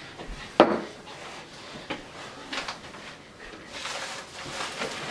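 A sharp knock about half a second in, then a lighter click, and a few soft breathy puffs of a child blowing on a forkful of hot noodles.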